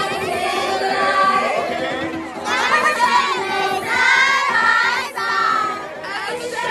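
A group of young women singing along together over music, in a crowd.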